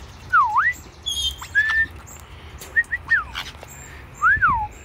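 White-bellied caiques whistling: a handful of clear notes that swoop down and back up, a few short chirps around the middle, and a rising-then-falling whistle near the end.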